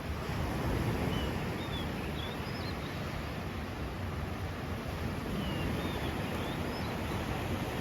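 Low rumble of wind on the microphone and sea surf, with a bird calling in two short runs of thin whistled notes that rise and fall, about a second in and again about five and a half seconds in.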